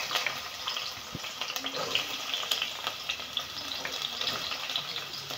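Chopped onions sizzling in hot oil in a metal pot: a steady crackling fry with a few faint clicks.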